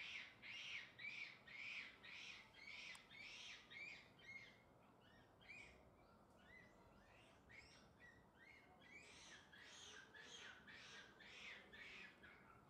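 Faint, regular chirping, about two short high calls a second, weaker for a few seconds in the middle.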